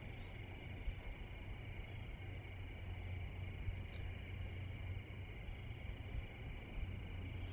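Quiet steady background: a low hum and faint hiss with a few thin steady high tones, broken by a couple of faint ticks.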